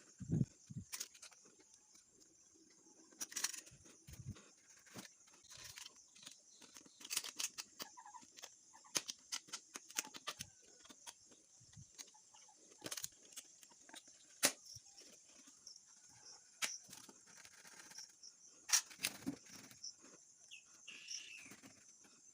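Irregular sharp clicks, taps and crackles of a plastic bottle being handled and cut, over a steady high hiss.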